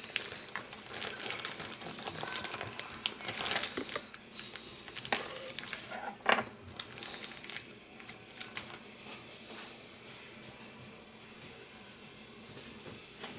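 Bacon frying in hot grease in a pan, a steady sizzle with crackling pops and a few sharper clicks, the loudest about six seconds in, then settling to a quieter sizzle.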